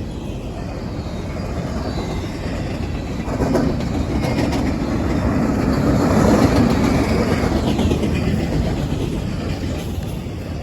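A long train running past as it slows down, its wheels rumbling and clattering on the rails. It grows louder toward the middle, then eases off.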